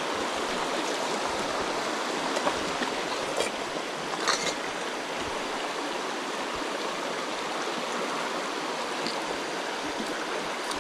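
Jungle river rushing steadily, a full, even water noise, with a couple of faint clicks a few seconds in.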